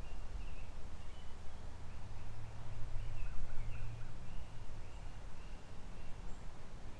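Creek water running steadily, with a low wind rumble on the microphone that swells about two to four seconds in, and faint small birds chirping high above it.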